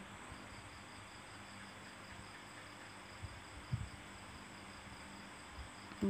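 Faint steady insect chirring over a low hiss, with a soft low thump a little past halfway.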